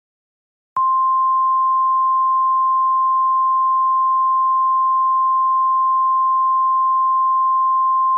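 Emergency alert attention tone in the NOAA Weather Radio style: a single loud, steady, pure beep held for about seven seconds. It starts just under a second in and cuts off abruptly at the end, signalling that an alert message follows.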